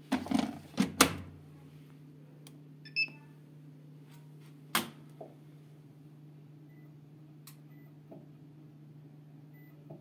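Bosch washing machine being set to start: several clicks and knocks in the first second, a short electronic beep about three seconds in, then a few scattered soft clicks over a steady low hum.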